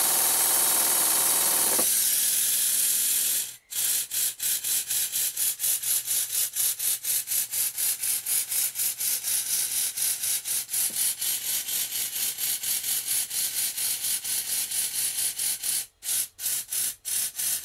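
Stuart Double 10V twin-cylinder model steam engine running on compressed air. It starts as a steady rush of air, then changes suddenly to distinct, even exhaust beats at about four a second. The beats break up irregularly near the end. The engine is running strongly and without stalling now that its slide valves and eccentrics have been reset.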